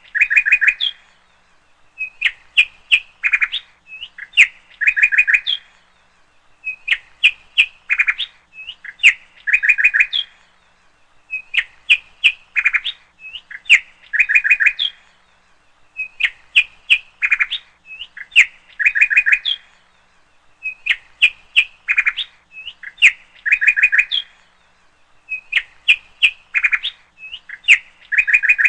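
A bird chirping in short, high, sharp phrases, in bursts that repeat at a very even rhythm, roughly every two to two and a half seconds.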